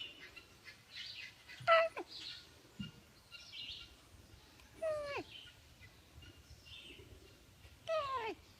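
An animal calling three times, about three seconds apart: each call a short squeal sliding steeply down in pitch.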